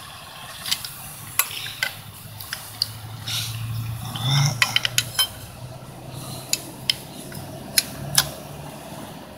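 Wrench clinking against the metal nuts and fittings of a three-cylinder diesel tractor's fuel injector lines as they are tightened back up after bleeding the air out, a scatter of sharp clicks. A faint low hum runs under the middle part.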